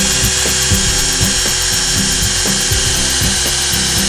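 Cordless drill driving a self-drilling tek screw through the metal trim, L-bracket and solar collector frame, its motor running at a steady high whine under load.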